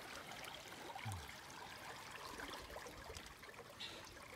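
Faint trickle and flow of river water, with a brief low sound about a second in.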